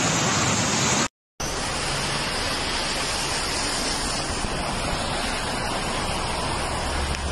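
Swollen floodwater rushing, a steady full-range roar. It cuts out for a moment about a second in and resumes, and a low rumble joins it near the end.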